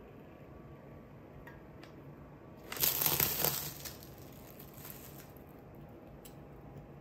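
Food packaging crinkling as it is handled, in a loud burst about three seconds in that lasts about a second, then a few softer crinkles.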